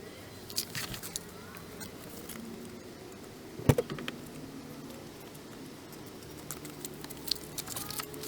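Scattered light clicks and taps of hand work with tools and metal parts, with one sharper knock a little before halfway and a quick run of clicks near the end.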